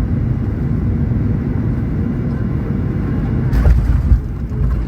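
Steady low rumble of an airplane's engines, with a sharp knock about three and a half seconds in, after which the low rumble grows heavier.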